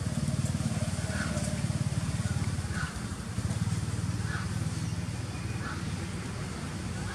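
A low, steady engine-like rumble, with a faint short chirp repeating about every second and a half.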